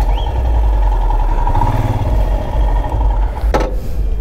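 Motorcycle engine running at low speed under a heavy low rumble on the microphone. A sharp knock comes about three and a half seconds in, after which the sound drops away.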